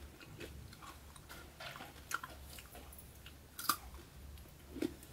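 A person chewing a mouthful of peanut-and-jaggery chikki (brittle), with scattered soft crunches and a few sharper cracks, one about two seconds in and others toward the end.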